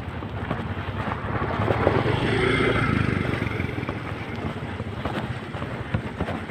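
A motor scooter passes close by, loudest about two seconds in, then fades as it rides away, over wind noise on the microphone.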